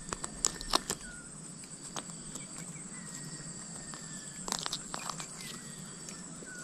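Outdoor rural ambience: a steady high-pitched insect drone, with scattered light clicks and taps, a few in the first second and another cluster about four and a half to five seconds in.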